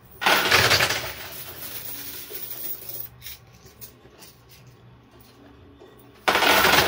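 Quarters clattering in a coin pusher machine: a loud rush of coins just after the start that fades into a lighter rattle, then a second loud rush about six seconds in.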